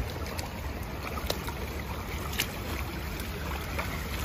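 Steady low wind rumble on the microphone over shallow water, with a few faint splashes of rubber boots wading through the runoff.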